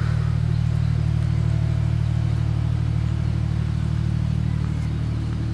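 An engine running steadily, a low even hum with a slight regular pulse.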